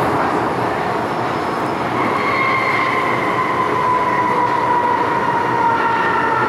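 MTR M-Train running in a tunnel and braking for a station: steady rumble of wheels on rail, joined about two seconds in by a howling braking whine that slowly falls in pitch, the 'ghost howl' (鬼叫) brake sound this train is known for.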